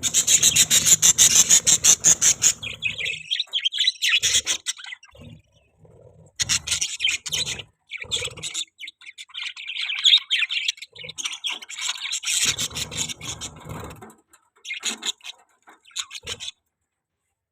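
Budgerigars chirping in rapid, chattering bursts, densest over the first three seconds, then in shorter runs with pauses, falling silent about a second before the end.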